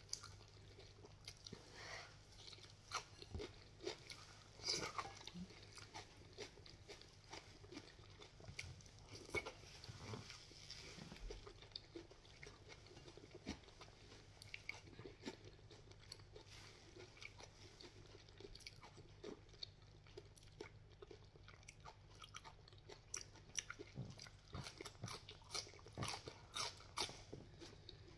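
A person chewing and biting crunchy food, including fresh green chili, close to the microphone: a long run of small crunches and wet mouth clicks, faint.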